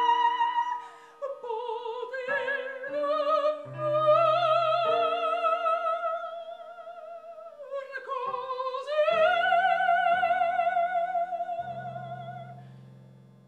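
Operatic soprano singing an aria with a wide vibrato over piano accompaniment, holding long notes; the last long note fades away near the end.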